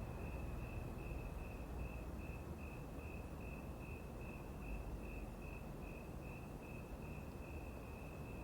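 A cricket chirping steadily, about four even chirps a second, over a low rumble.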